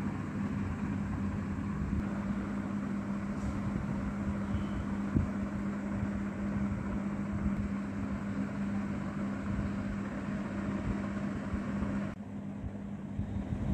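Steady mechanical drone with a constant low hum over a hiss. There is a single click about five seconds in, and the hiss thins out near the end.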